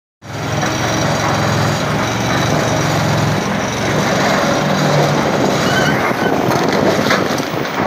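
Maxbrio BR55 vibro ripper on a Caterpillar 352F excavator running in rock: a steady low hum from the ripper and the excavator's engine under hydraulic load. Rock cracks and crunches as the tooth rips through, more in the last couple of seconds.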